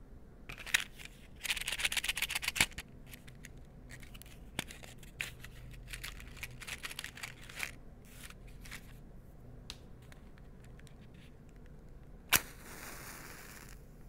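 A matchbox of wooden matches rattling as it is shaken, then small clicks and rustles as the drawer is slid open and a match is taken out. About twelve seconds in the match is struck with one sharp scrape and flares, hissing for a second or two as it catches.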